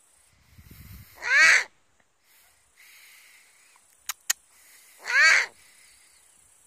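Eurasian eagle owl giving two loud, harsh calls about four seconds apart, each falling in pitch, with two sharp clicks between them.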